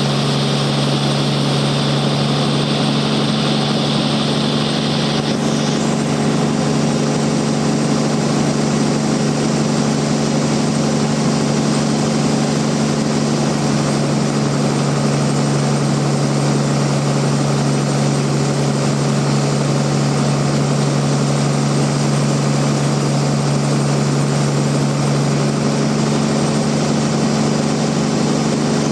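Band sawmill running steadily with a constant low machine hum. A higher hiss in the sound drops away about five seconds in, and the machine keeps running.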